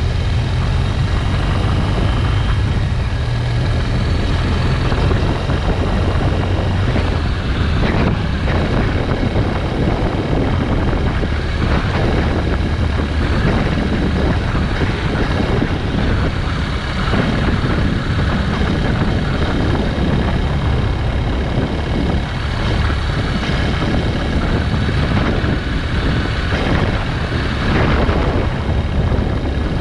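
Motorcycle on the move at road speed: a steady engine drone under heavy wind rush on the microphone.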